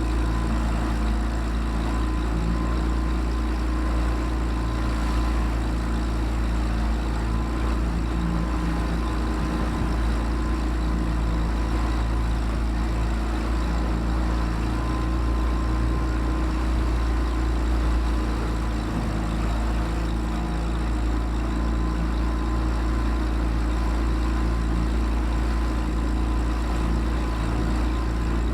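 Boat engine running steadily at an even speed, a constant low drone with no change in pitch.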